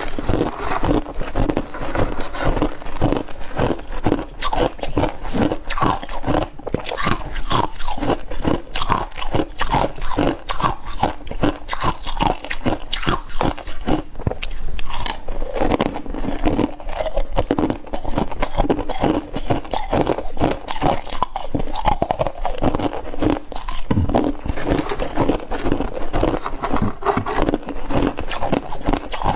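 Freezer frost and ice being bitten and chewed close to the microphone: rapid, continuous crunching with no pauses.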